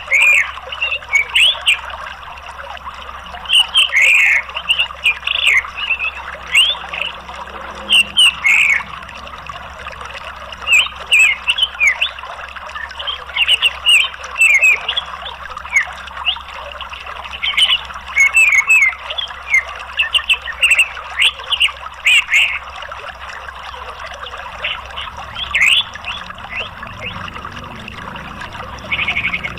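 Orange-headed thrush calling in clusters of short, quick chirps and slurred notes with brief pauses between, over a steady background of running water.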